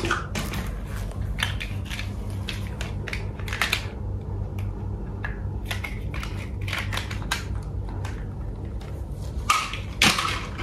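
Scattered light clicks and clacks of hard plastic toy vehicles being handled and knocked together on a tile floor, a few louder clacks near the end, over a steady low hum.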